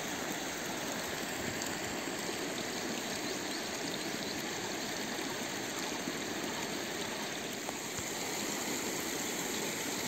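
Steady sound of running water from a small earthen irrigation channel carrying diverted canal water down into a paddy seedbed.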